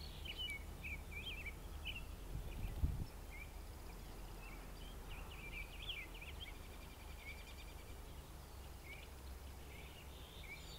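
Small songbirds chirping and twittering in quick, wavering phrases over a steady low rumble, with a brief low thump about three seconds in.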